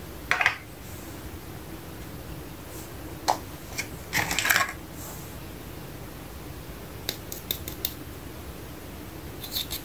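Small plastic toy pieces clicking and clattering as they are set down and handled: a click about half a second in, a louder clatter around four seconds in, then light ticks near the end.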